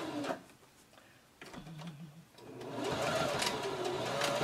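Janome domestic sewing machine stitching in stop-start bursts under foot-pedal control: it stops just after the start, makes a short slow run about a second and a half in, then runs again for the last two seconds, its motor whine rising and falling in pitch with the speed.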